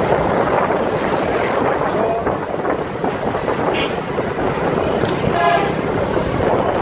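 Motorcycle under way: steady engine and road noise with wind buffeting the microphone. A short pitched tone sounds about five and a half seconds in.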